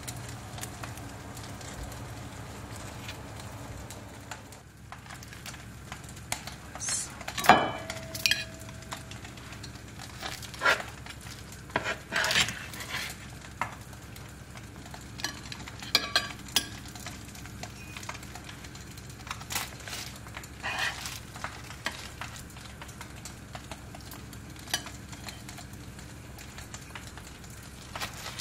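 Scattered clinks and knocks of cutlery and dishes over a steady low hum. One sharper clink about seven and a half seconds in rings on for a second or so.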